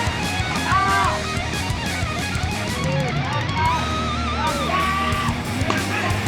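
Music led by electric guitar, with bent, wavering notes over a steady beat.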